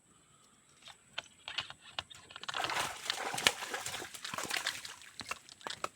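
Water splashing and sloshing with a run of sharp slaps, loudest in the middle and dying down near the end.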